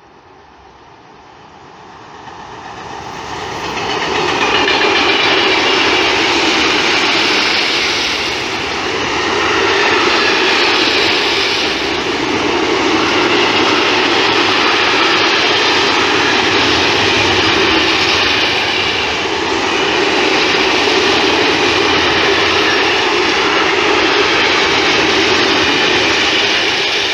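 Freight train hauled by a Siemens Vectron electric locomotive approaching and running past, a long train of covered hopper wagons rolling over the rails. The noise builds over the first few seconds, then stays loud and steady with slow swells.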